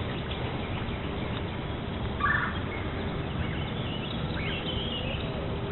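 Steady outdoor background hiss with one short bird call about two seconds in, and faint higher chirps near the end.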